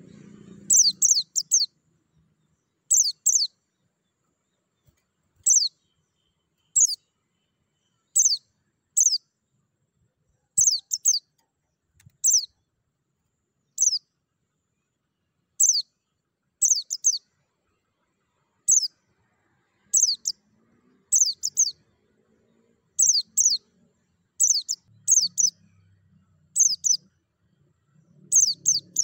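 Caged white-eye (pleci) giving short, high, sharp chirps that fall in pitch, in quick runs of two to four, repeated every one to three seconds.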